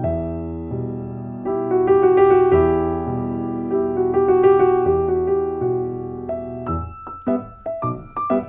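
Background piano music: held chords for most of the time, then quick, separate notes from about seven seconds in.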